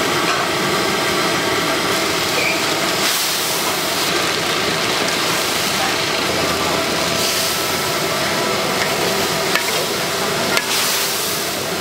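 Steady sizzling hiss of pad thai noodles frying in a hot wok over a gas burner, with two short knocks near the end.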